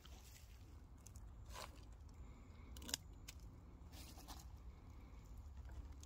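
Faint rustling and a few crisp snaps and clicks of mushrooms being picked from the leaf and needle litter and put into a plastic basket. The sharpest click comes about halfway through.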